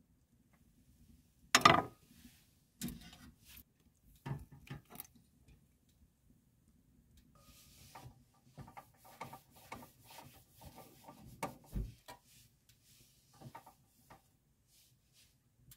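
A short clatter about two seconds in. Then a damp coin tissue rubs and wipes over the metal case and frame of a portable gas stove in short irregular strokes, with light knocks as the stove is handled.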